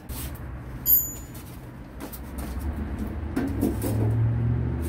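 A vehicle engine running steadily, a low drone that grows louder over the last couple of seconds. A single sharp metallic click comes about a second in.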